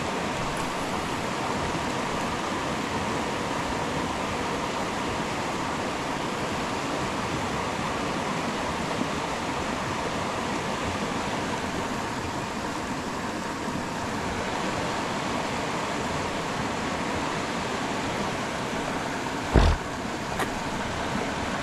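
Creek water rushing steadily over rocky riffles and small ledge falls. A short, low thump about 19 seconds in.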